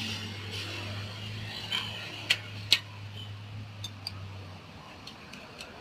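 Sharp metallic clicks and light clinks of hands and a screwdriver working on a Toyota Starlet EP80's rear drum brake parts. Two loud clicks come a little past the middle, then several lighter ticks, over a steady low hum that stops about three-quarters of the way through.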